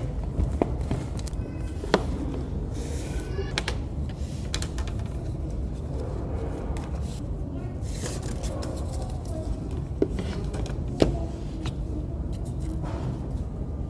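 A hardcover book handled on a wooden table: a few sharp taps as it is set down and its cover opened, and paper rustling as the pages are flipped, over a steady low room hum.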